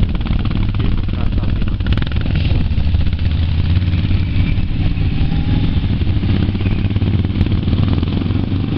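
Strong wind buffeting the camera microphone: a loud, steady, rumbling roar with a rough flutter.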